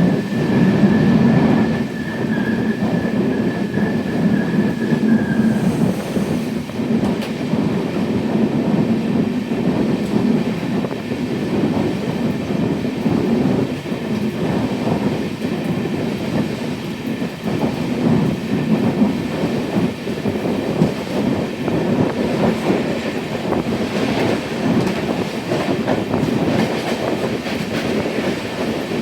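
Train running along the track: a steady rumble with rhythmic clatter of the wheels over the rails. A thin high squeal is heard for the first five seconds or so, then stops.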